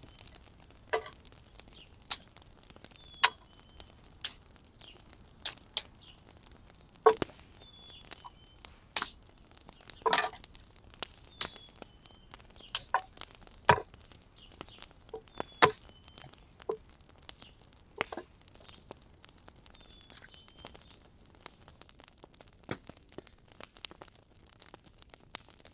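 Sharp, irregular clicks and knocks, roughly one a second, like hard objects being handled at a campsite. A small bird gives a short, high chirp every few seconds.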